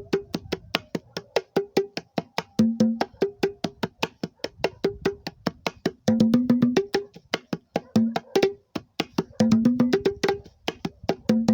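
Homemade wooden cajón-style hand drums, built to stand in for congas or a batá set, played by hand in a fast, steady rhythm of sharp strokes. A higher-pitched drum takes most of the strokes, and a lower drum comes in with short pairs of deeper tones every second or two.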